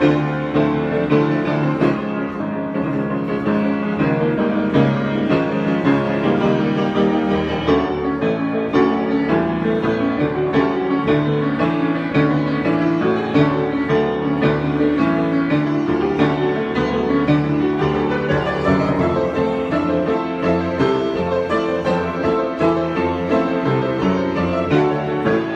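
Solo piano improvisation, played continuously as a dense stream of notes and chords.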